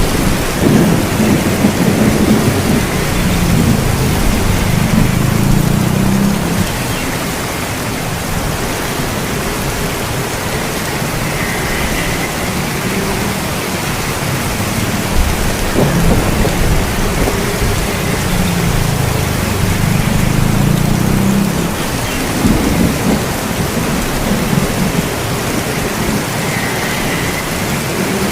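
Steady rain falling, with low rolling thunder rumbling twice: during the first few seconds and again about two-thirds of the way through.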